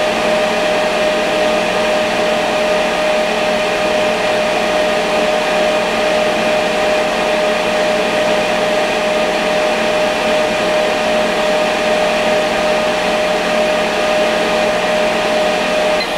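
Laser cutter running, a steady blower-like rush with a constant whine, as it cuts the last outlines of a wooden part.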